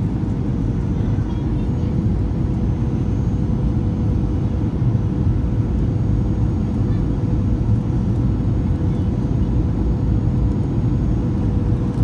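Jet airliner cabin noise on descent: the steady deep rumble of the turbofan engines and airflow, with a faint steady hum above it, heard from inside the cabin by a window seat.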